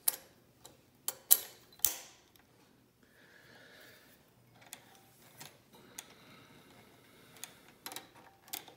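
Sharp metallic clicks of an M-type bobbin case being fitted into the hook of an industrial sewing machine: three or four loud clicks in the first two seconds, then a few lighter clicks near the end.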